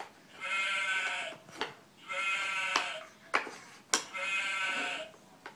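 A farm animal puzzle playing a recorded farm-animal call three times in a row, each call just over a second long and alike, with a few sharp knocks between them.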